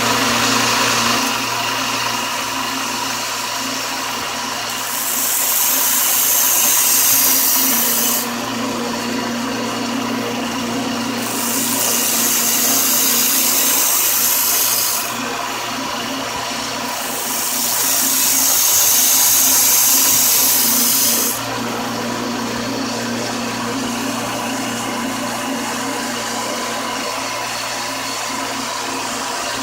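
Belt sander running steadily with a 100-grit belt while knife blades are ground on it. Three long grinding passes of about 3 to 4 seconds each add a loud, high hiss over the motor's hum.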